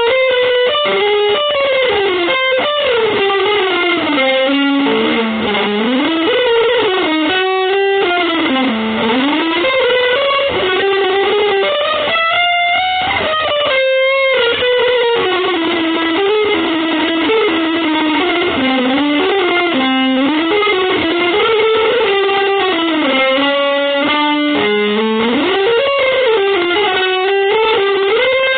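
Music: an electric guitar through effects plays a continuous winding melody, its notes sliding and bending up and down in pitch.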